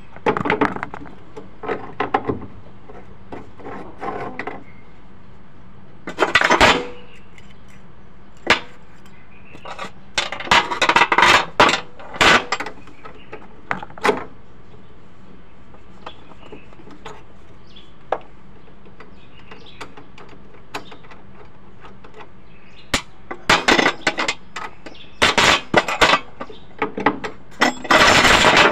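Intermittent metallic clinks, scrapes and rattles of hand tools undoing the nuts that hold the fuel pump on the fuel tank. They come in scattered clusters with quieter gaps between.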